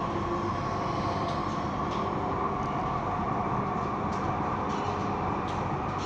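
Delhi Metro Blue Line train running at speed, heard from inside the carriage: a steady rumble with a high whine held at one pitch and a few faint clicks.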